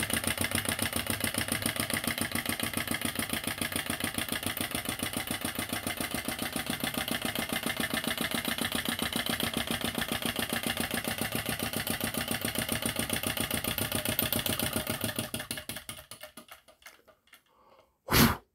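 Model flame-licker (vacuum) engine running with a rapid, even mechanical beat as its valve and piston cycle. Near the end the beat slows and dies away as the engine stops, and a short loud burst of noise follows.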